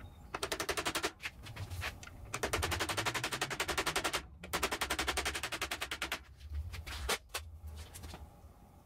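A brass hammer taps rapidly on a socket to drive a new ball bearing onto a bandsaw blade guide's side-bearing shaft. The taps come in three runs of about ten a second, and a single sharp click follows near the end.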